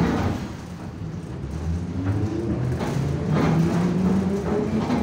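Moscow metro train pulling away from a station, heard from inside the car: a sudden burst of noise at the start, then the traction motors whining and rising in pitch as the train gathers speed.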